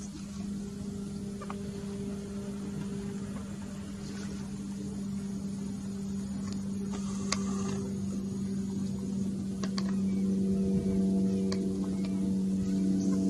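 Steady low hum that slowly grows louder, with a few faint clicks.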